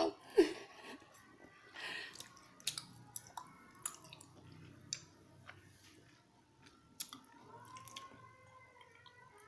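Close-miked chewing of chewy tteokbokki rice cakes, with wet mouth clicks and smacks scattered through. The loudest is a sharp smack about half a second in.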